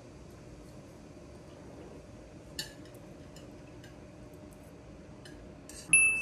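Tableware clinking: a few light taps of utensils on dishes, then a sharp, louder clink near the end that rings on briefly.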